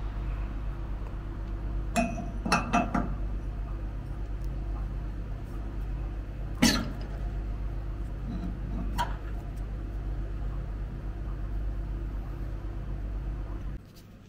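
Metal parts of a lever espresso machine's group head clinking as they are handled: a few sharp clinks about two seconds in, a louder one near the middle and a fainter one a couple of seconds later. A steady low hum runs underneath and cuts off shortly before the end.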